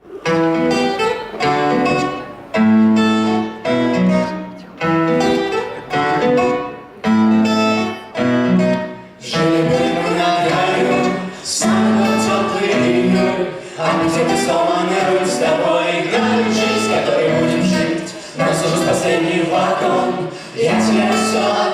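Music: the instrumental opening of a pop song, chords repeated in a steady rhythm that grows fuller and denser after about nine seconds.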